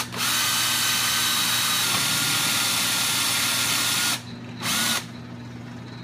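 Electric drill boring a 5/16-inch hole through the metal of a clutch pedal assembly, its motor whining steadily for about four seconds before stopping. A short second burst of drilling follows about a second later.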